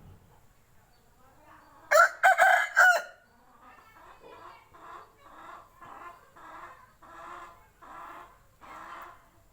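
Aseel rooster crowing once, loud and short, about two seconds in, followed by a run of quieter, evenly spaced clucks, about one and a half a second.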